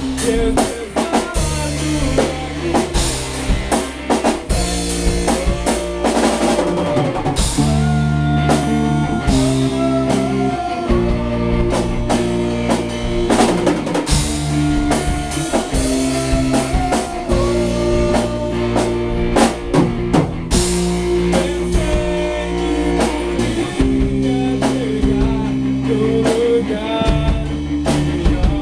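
Rock band playing an instrumental passage: drum kit keeping a steady beat under bass and electric guitar, with a guitar melody over it.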